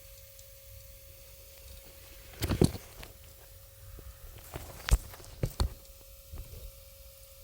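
A few sharp knocks and clatters of parts being handled, the loudest a cluster about two and a half seconds in and single knocks near five seconds in, over a faint steady hum.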